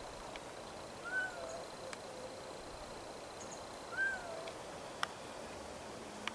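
Kitten meowing twice from high up a tree where it is stranded; each is a short call that rises and falls in pitch.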